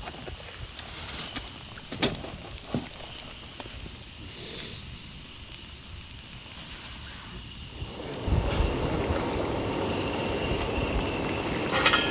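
Bread, slices of luncheon meat and an egg omelette sizzling in a frying pan on a camp stove, with a couple of light knocks about two seconds in. About eight seconds in, a louder, fuller steady hiss comes in.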